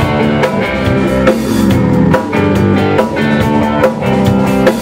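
Rock band playing an instrumental passage: distorted electric guitar chords over a drum kit keeping a steady beat, with no singing.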